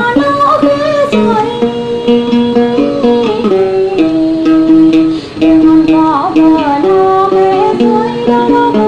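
Tày folk music: a plucked string instrument carries a melody over accompaniment, with a brief drop in loudness about five seconds in.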